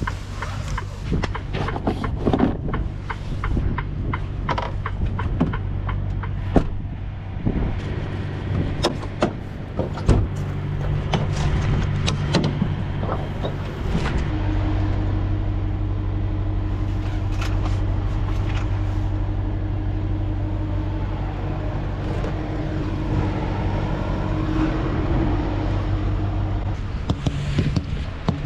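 Semi truck's diesel engine running steadily, heard from inside the cab, with irregular sharp clicks and taps through the first half. About halfway through, a steady higher drone joins the engine note.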